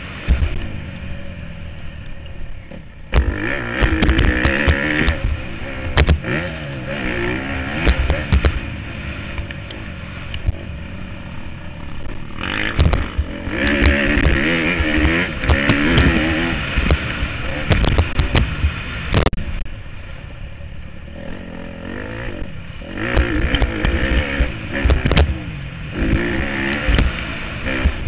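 Motocross bike engine revving up and falling back over and over as it is ridden hard, heard from a helmet camera, with many sharp knocks over it.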